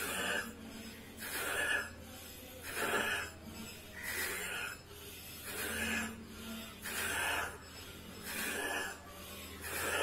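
A man's forceful rhythmic breathing in a yoga breathing exercise meant to clear the airways. Short rushing breaths come in a steady rhythm, about one every second and a half.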